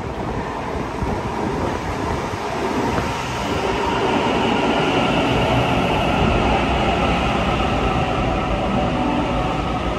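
Sydney Trains double-deck electric suburban train running into an underground station platform: a loud, steady rumble of wheels and running gear, echoing off the station walls. A high whine joins in about three and a half seconds in as the carriages run past.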